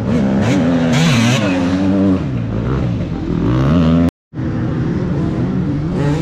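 Enduro dirt bike engines revving hard on a dirt track, the pitch climbing and dropping as the bikes accelerate and shift gear. The sound drops out completely for a moment about four seconds in.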